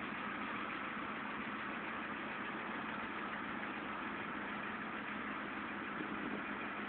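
A Ford Escort ZX2's 2.0 L four-cylinder engine idling steadily.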